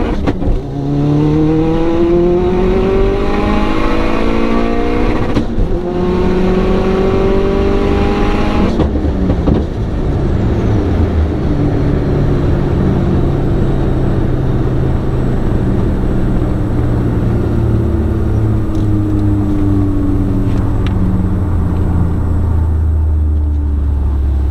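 Vauxhall VXR car engine revving hard at full throttle on a drag-strip run, its pitch rising through the gears with two brief breaks for upshifts in the first nine seconds. Then the engine settles to a lower, steadier note that slowly drops in pitch as the car slows.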